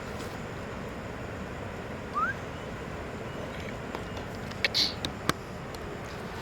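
Steady rush of a waterfall. A short rising whistle comes about two seconds in, and a bright chirp and a few sharp clicks come around five seconds in.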